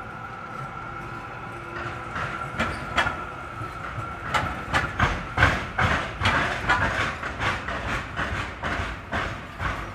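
Melbourne Z-class tram crossing the railway lines, its wheels clattering over the tram-and-railway crossing in a run of irregular knocks. The knocks start about two seconds in and are loudest around the middle, over a steady hum.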